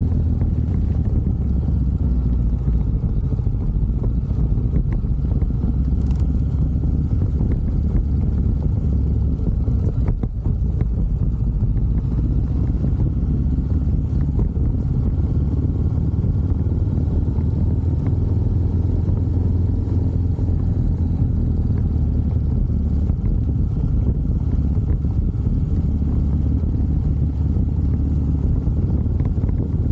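Motorcycle engine running steadily while riding along, mixed with the low rumble of wind on the microphone.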